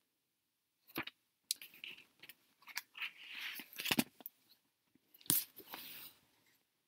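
Handling noises as a book and its papers are closed and put away: paper and cover rustling, with several sharp clicks and knocks.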